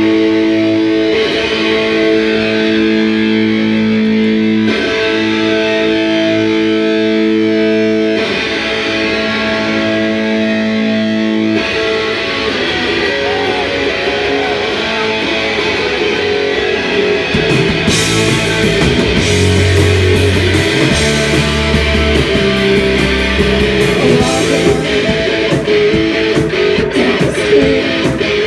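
Live rock band playing loud electric guitar music: long held guitar chords changing every few seconds, then about twelve seconds in the playing turns busier, and bass and drums come in about eighteen seconds in.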